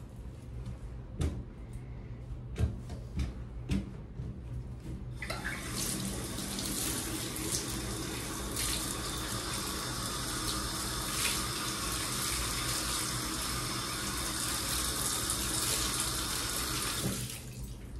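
A few sharp knocks, then a water tap turned on, running steadily for about twelve seconds and shut off shortly before the end.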